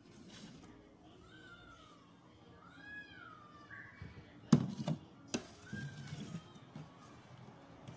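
A cat meowing, about three drawn-out meows that rise and fall in pitch. Three sharp knocks come about halfway through, the first the loudest.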